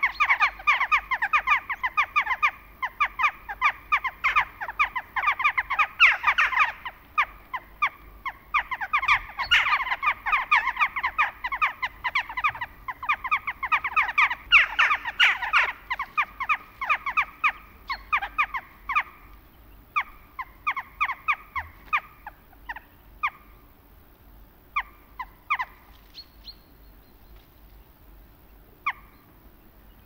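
A flock of western jackdaws calling: many short, sharp calls overlapping thickly, thinning out to scattered single calls over the last third.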